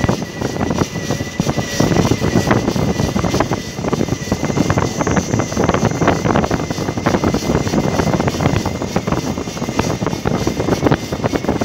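Wind buffeting the phone's microphone, with road noise, while riding an e-bike along a rough paved road. A faint steady high whine sits under it, clearest in the first few seconds.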